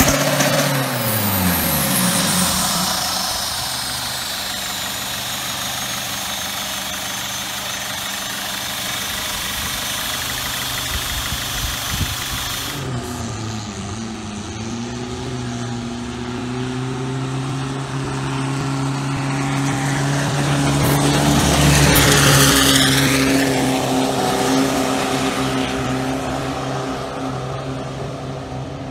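Turbocharged diesel longtail-boat engine on a stand, its revs falling off a blip and then running steadily. Then a turbodiesel Thai longtail racing boat on a canal comes closer, is loudest about halfway through as it passes, and drops in pitch as it goes away, with the hiss of its spray.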